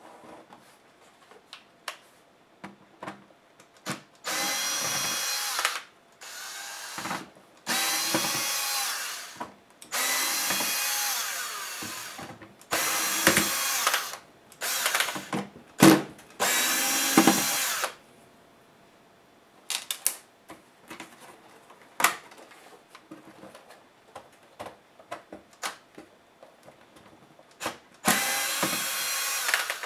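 Cordless power screwdriver running in about seven short runs of a second or two each, backing screws out of a laptop's chassis. Small clicks and taps of the screws and case being handled fall between the runs.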